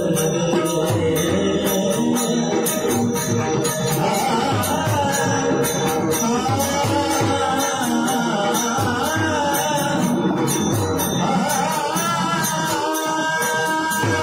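Marathi chakri bhajan: devotional singing over a steady, fast beat of drum strokes and jingling small hand cymbals.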